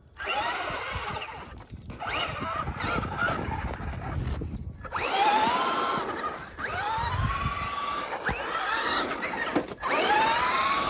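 Electric RC truck's motor whining in repeated bursts, its pitch climbing sharply each time the throttle is punched and then levelling off, about every two seconds.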